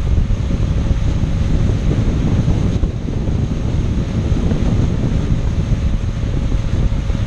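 Steady wind buffeting the microphone on a motorboat under way, over the drone of its engine and the rush of its wake.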